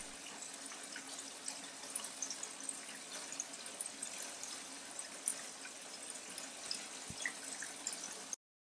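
Aquaponics siphon draining the grow bed into the fish tank through a 3D-printed four-outlet quad head: four streams of water splashing steadily into the tank water, with small crackling spatters. It cuts off suddenly near the end.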